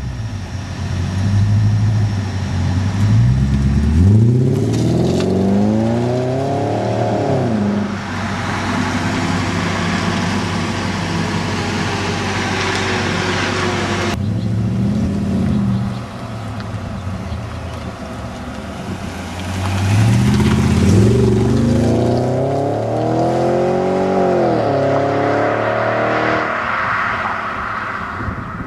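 BMW E38 740i V8 engine revved up hard twice, its pitch climbing steeply and dropping back each time, with a steadier stretch between that cuts off suddenly about halfway through.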